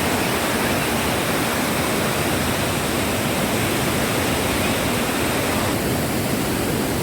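Rushing river water: a steady, even roar of whitewater with no change in level.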